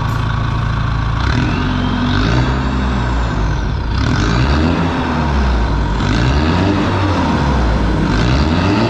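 Mitsubishi Strada Triton pickup's diesel engine running. It holds steady for about a second, then its pitch rises and falls several times as it is revved.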